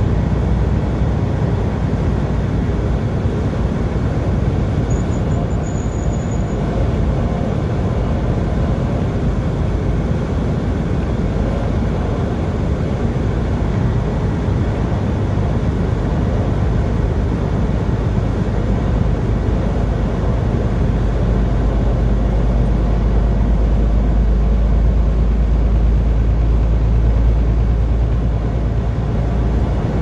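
Steady engine and road noise heard from inside a vehicle driving on a highway, with a deep low rumble that grows stronger about two-thirds of the way through.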